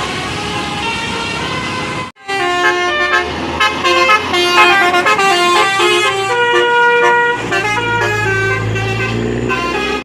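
Bus 'telolet' multi-tone air horn playing a fast melody of changing notes. It comes in abruptly about two seconds in, after a stretch of general street noise, and cuts off suddenly at the end.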